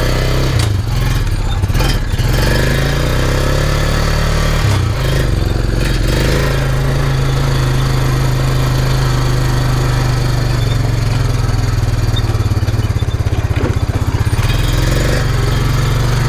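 Quad (ATV) engine running under way over rough ground, its pitch shifting with the throttle a few times in the first five seconds, then holding steady.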